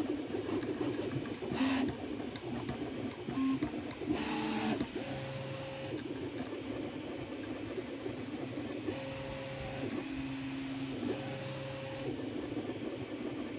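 Original Prusa Mini 3D printer printing: its stepper motors whine in held tones that change pitch with each move, over a steady hiss. The first few seconds are choppy with short, rapid moves. After that come longer moves, each a steady tone lasting one to three seconds.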